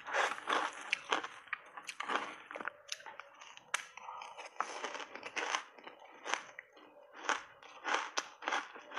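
Reshaped crushed ice soaked in matcha tea being bitten and chewed: a run of short crunches, roughly one a second, as the packed ice breaks up in the mouth.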